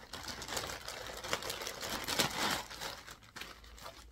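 Plastic bag crinkling and rustling in irregular crackles as it is handled and opened.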